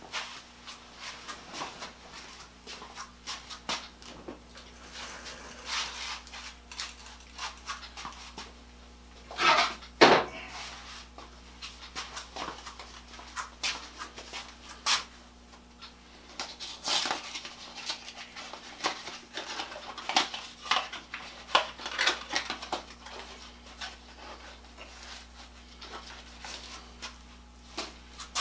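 Scattered rustles, clicks and knocks of someone moving about a workshop and handling a cardboard box of nitrile gloves, with one louder knock about ten seconds in, over a steady low electrical hum.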